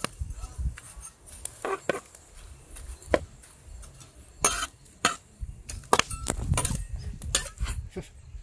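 Irregular clinks and knocks from hand tools and utensils during food preparation, about a dozen short strikes.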